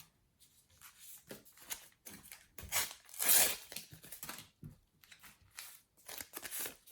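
A paper sticker packet being torn open, with crinkling and rustling of the wrapper and stickers. The loudest part is one longer rip about three seconds in.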